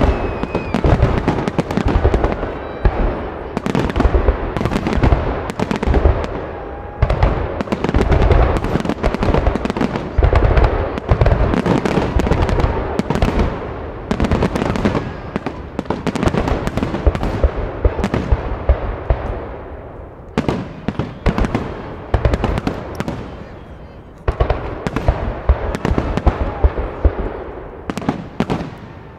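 Aerial firework shells bursting in a dense, continuous barrage: many overlapping deep booms a second, with crackling between them. The barrage eases briefly past the middle, then picks up again.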